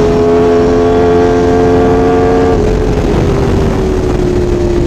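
Sport motorcycle engine running at steady high revs at highway speed. A little over halfway through, its pitch steps down and then keeps sinking slowly.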